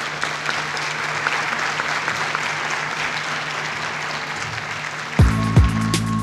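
Audience applauding. About five seconds in, the applause is cut off by electronic music with a heavy beat.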